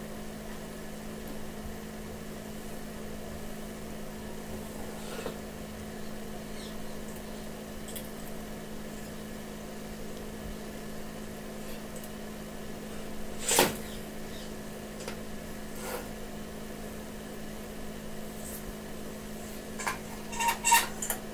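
Light metallic clicks and knocks from handling a sheet-metal room heater body and its wire guard grille: a few scattered taps, the loudest about two-thirds of the way through, then a quick cluster of clicks near the end as the grille is set on. A steady low hum runs underneath throughout.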